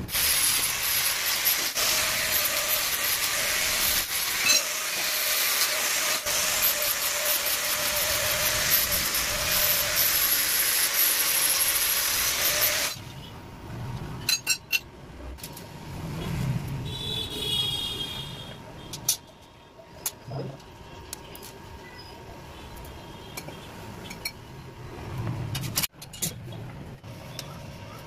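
Handheld angle grinder with a thin cutting disc cutting through stainless steel pipe, a steady high whine and hiss that stops abruptly about thirteen seconds in. After that come quieter clinks and knocks of steel pieces being handled and fitted.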